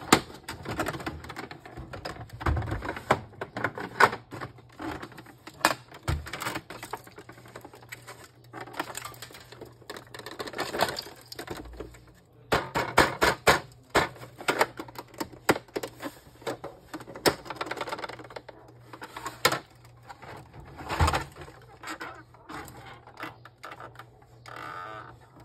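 Irregular plastic clicks, knocks and rattles from an Epson L3150 ink-tank printer's casing being handled, tilted and taken apart by hand.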